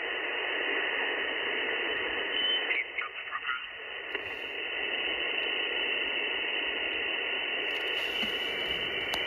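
Icom IC-705 receiver hissing with 160-metre band noise in lower-sideband mode. About three seconds in, the noise briefly dips and a short warbling sweep passes as the dial is tuned down the band.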